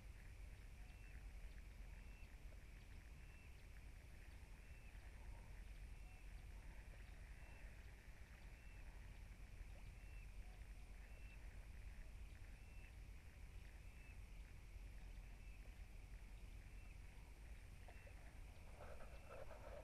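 Near silence: faint outdoor ambience with a steady high-pitched animal call repeating roughly once a second, and a brief louder rustle near the end.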